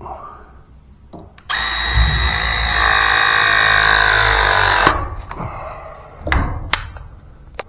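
Battery-powered press tool crimping a press fitting onto a gas pipe: the motor runs for about three and a half seconds, its pitch sinking slightly as the jaws close on the fitting, then stops. A few sharp clicks follow near the end.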